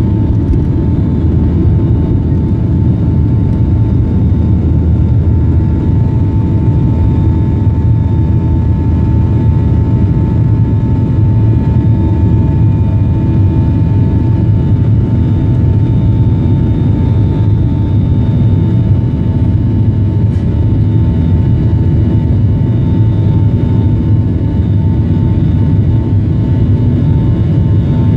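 Boeing 737-800's CFM56-7B turbofan engines at takeoff thrust, heard in the cabin beside the wing during the takeoff and climb-out. There is a steady low roar with a steady whining tone above it.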